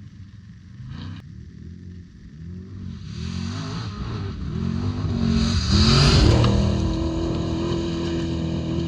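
Off-road race vehicle's engine revving and changing pitch as it approaches and passes, loudest about six seconds in with a rush of noise at the peak, then carrying on at a steadier pitch.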